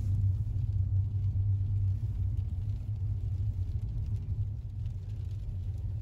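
Steady low rumble of a car driving, heard from inside the cabin: road and engine noise with no clear events.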